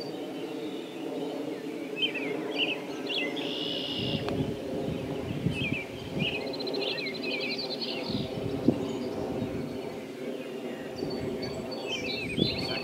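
Songbirds chirping and trilling in short phrases over a steady low hum, with occasional low rumbles.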